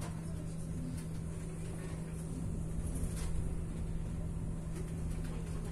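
Steady low hum over a rumble inside a double-deck passenger train carriage, with a faint click about three seconds in.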